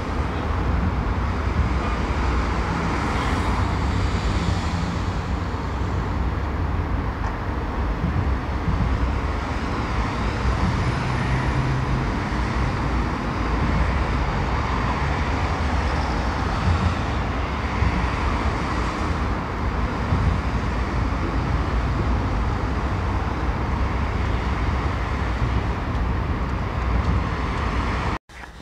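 Steady road traffic noise: cars driving past at close range, with a continuous low rumble of engines and tyres that swells slightly as each vehicle goes by. It cuts off suddenly just before the end.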